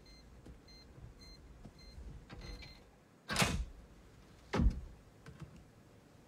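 Electronic safe keypad beeping four times as a code is keyed in, then a longer beep as the lock accepts it. About a second later come two loud clunks a little over a second apart as the lock releases and the safe door is worked open.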